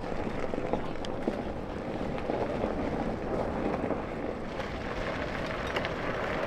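A man sprinting over gravel and through dry grass and brush: running footsteps and rustling heard as a steady noise.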